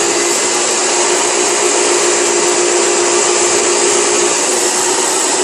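A small electric motor running steadily and moving air: a constant whooshing hiss with a steady low hum beneath it.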